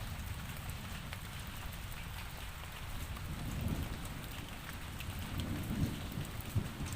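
Steady rainfall, with scattered individual drops ticking over the even hiss and a low, fluctuating rumble underneath.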